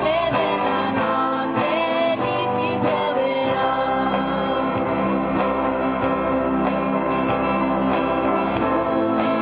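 Youth choir singing a song.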